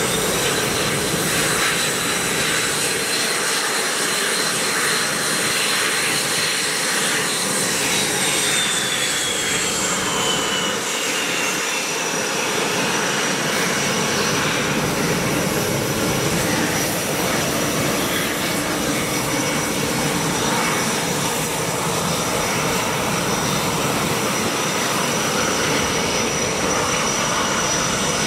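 Jet engines of KAI T-50B Golden Eagle trainers running on the ground: each jet has a single turbofan, and together they make a steady loud roar. A high whine rises at the start, holds, falls away about ten seconds in, and settles to a steady thin whine.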